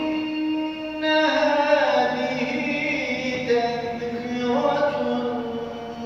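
A man chanting a mihrabiye, the solo devotional hymn sung from the mihrab after prayer, in long held notes with ornamented turns, the melody slowly stepping down in pitch.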